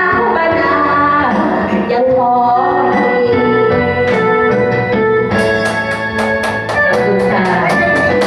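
A woman sings into a microphone over a loud karaoke backing track. Her voice drops out about three seconds in, and the backing track goes on with a steady beat.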